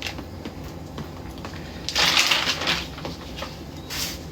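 A few light clicks, then about two seconds in a loud crinkling rustle of about a second, like something being crumpled or handled.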